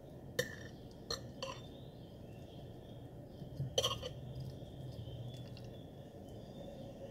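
Stainless knife and fork clinking and scraping against a ceramic plate while cutting through an omelette: a handful of sharp clinks, the loudest a pair about four seconds in, over a faint low hum.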